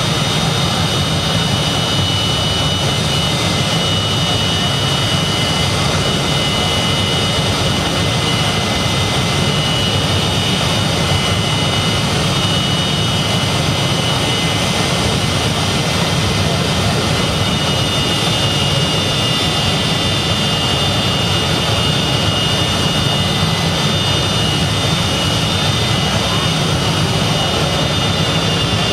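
Jet truck's jet engine running steadily at full power, a constant loud rush with a high whine, as its flame blast melts down a van.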